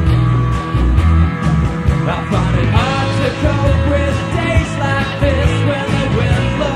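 Rock band playing: drums, bass and guitars, with a melody line bending in pitch above a heavy bass.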